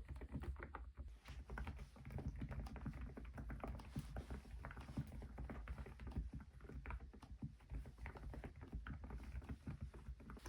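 Continuous typing on a Cidoo Nebula mechanical keyboard fitted with Epomaker Nude Rosa silent switches and XDA-profile keycaps: a quick, uneven run of quiet, muted keystrokes.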